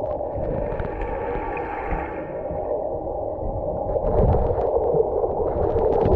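Muffled underwater sound of a swimming pool picked up by a submerged camera: a steady watery rumble with gurgles and scattered small clicks.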